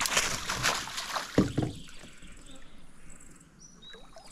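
Water splashing beside the boat for about a second, followed by two quick dull knocks.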